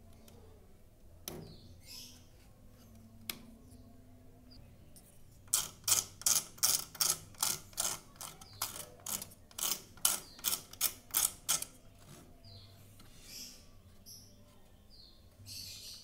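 A small flat metal tool scraping back and forth against the wooden frame of a bird cage: a couple of sharp clicks, then from about five seconds in a quick run of rasping strokes, two or three a second for about six seconds, followed by a few softer scrapes.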